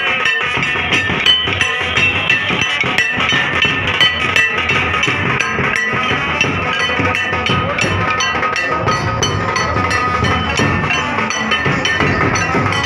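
Loud festival music with rapid, dense drumming under a high, repeating melody.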